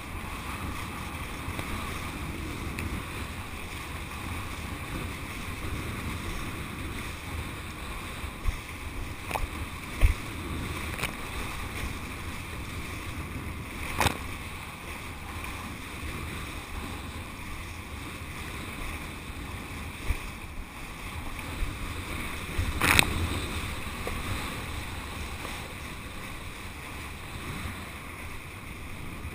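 Wind rushing over the microphone of a camera worn while kiteboarding, mixed with the board skimming over the water, as a steady noisy rush. A few sharp slaps cut through it, the loudest about two-thirds of the way in.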